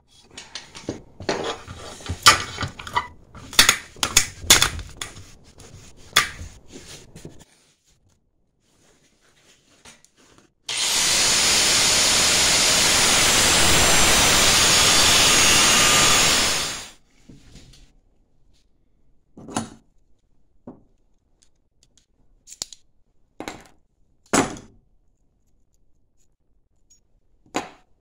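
Angle grinder with a cutoff wheel cutting through square steel tubing: a loud, steady grind for about six seconds, starting about eleven seconds in. Before it comes a stretch of irregular scratching and clicking as a scribe marks the steel. After it come a few separate knocks.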